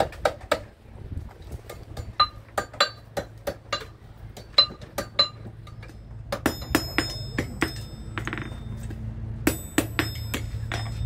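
A blacksmith's hand hammer striking hot iron on an anvil, with ringing metallic blows in a quick series of about three a second. A few more isolated, brighter ringing strikes come in the second half.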